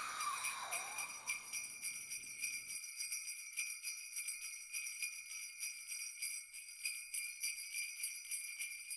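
Jingle bells shaken steadily in a quick, even rhythm, a bright high ringing. In the first second the tail of a falling whoosh dies away under them.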